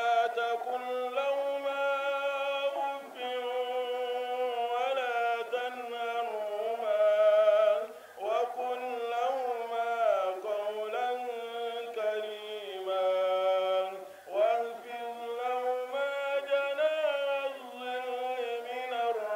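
A man's solo voice chanting into a handheld microphone with no accompaniment. The notes are long and ornamented and waver up and down, with short breaks for breath about eight and fourteen seconds in.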